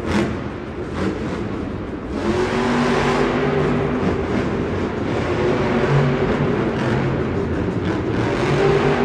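Monster truck's supercharged V8 engine revving hard and easing off over and over as the truck drives across the dirt. A sharp bang comes just after the start.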